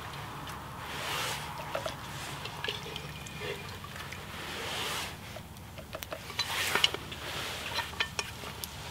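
A utensil stirring and scraping through thick stew in the pressure cooker pot: a few soft rustling swishes with light clicks of metal on metal.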